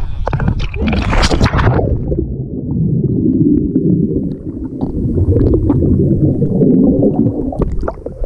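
A person plunging into the sea with an action camera: a splash about a second in, then muffled underwater bubbling and rumbling for several seconds, and splashing again as the camera comes back up through the surface near the end.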